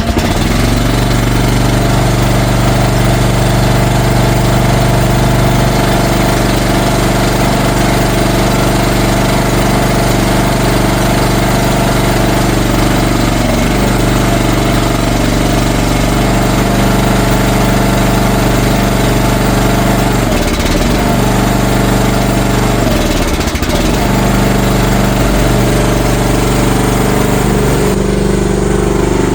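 CFG MX15RX mini excavator's small engine running steadily, with a few brief dips in pitch about two-thirds of the way through.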